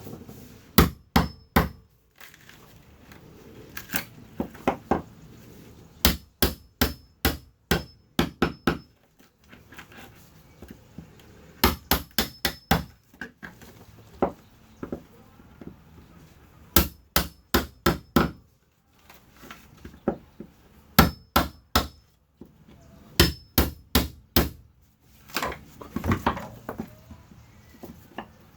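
Hammer blows struck in quick bursts of three to six, with pauses of a second or two between the bursts, some strikes leaving a faint metallic ring.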